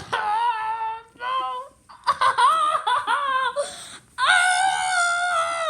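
A high-pitched voice making wordless cries in several short bursts with swooping pitch, then one long held cry from about four seconds in.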